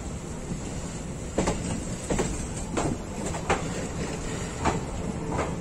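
Indian Railways express passenger coach rolling along with a steady rumble, its wheels giving about seven sharp, unevenly spaced clacks over rail joints and points as it comes into the station.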